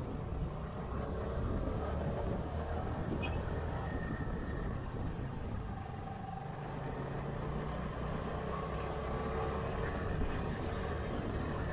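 Steady low rumble of a running vehicle, with a faint engine hum that shifts slightly in pitch.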